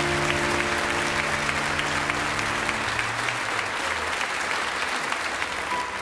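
The end of a background music track: a held chord fades out over about three seconds under a steady clapping-like crackle that sounds like applause. A new tune starts right at the end.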